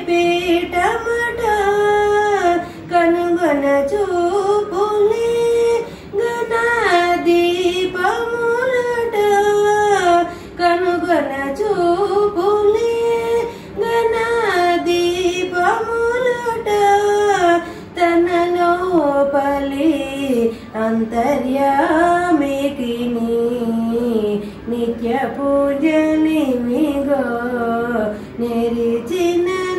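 A woman singing a devotional song solo and unaccompanied, a single melodic line in phrases with short breaks for breath.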